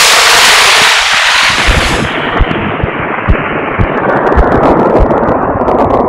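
Synthetic sound made by playing an image as a spectrogram in Photosounder: a loud, dense hiss with no clear pitch. About two seconds in, its upper treble cuts off abruptly and its ceiling then slides steadily lower. From that point on it is broken by sharp crackles and low thumps.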